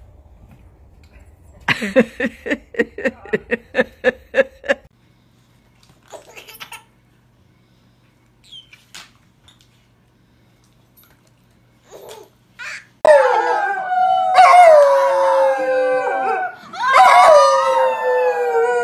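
A dog howling with two children howling along with it, in several long overlapping howls that fall in pitch; this starts about two-thirds of the way in and is the loudest sound. Earlier, a quick string of about ten short pitched calls.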